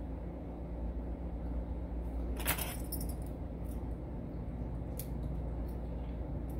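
Light metallic clicks from the brass plug and small parts of an Evva 3KS lock being handled and fitted during reassembly, with two sharper clicks about two and a half and five seconds in, over a steady low hum.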